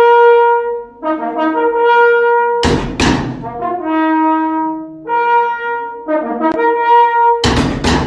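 Brass music playing a tune of held notes, cut into twice by a loud hissing burst, about three seconds in and again near the end.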